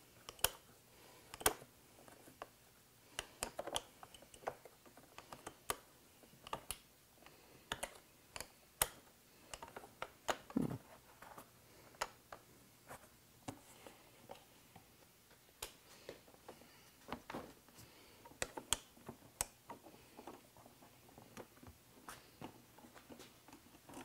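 Faint, irregular small clicks and light taps, about one or two a second, as hands and a small tool work a fastener out of a Gen 2 Suzuki Hayabusa's plastic fairing. A duller knock comes about ten seconds in.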